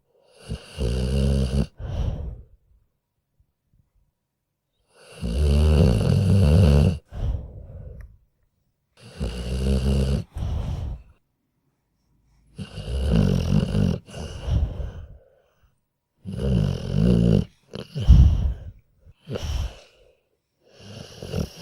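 Sleeping dog snoring in slow, regular breaths. Each cycle is a longer snore followed by a shorter one, repeating about every four seconds with quiet between.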